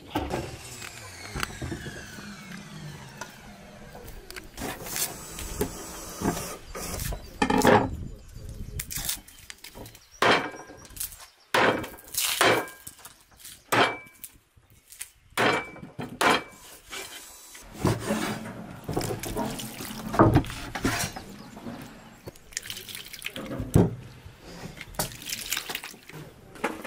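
Cooking prep sounds: irregular knocks and clinks, a few of them ringing briefly, with water splashing now and then.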